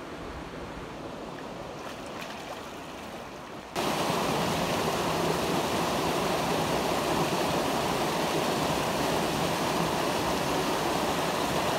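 Stream water rushing: a steady noise of running water that turns suddenly much louder about four seconds in and then holds steady.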